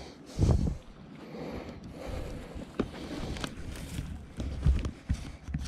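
Wind and handling noise on a body-worn camera microphone while a largemouth bass is held and lowered to the water. There is a loud low thump about half a second in, then a rustling haze with scattered sharp knocks.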